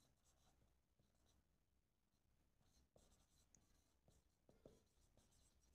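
Near silence, with the very faint strokes and a few soft taps of a marker writing on a whiteboard.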